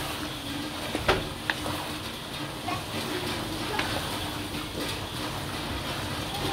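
Thick chicken curry simmering in a pan with a steady bubbling hiss, and a few sharp clicks of a wooden spatula against the pan as it is stirred.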